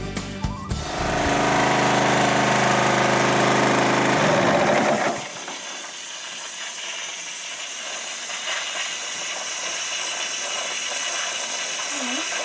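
A loud sustained sound with steady tones cuts off suddenly about five seconds in. It leaves the steady hiss of a petrol-engine scuba air compressor running, filling dive cylinders.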